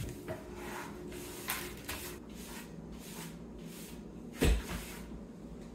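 A broom sweeping a hardwood floor in short brushing strokes, with a thump about four and a half seconds in.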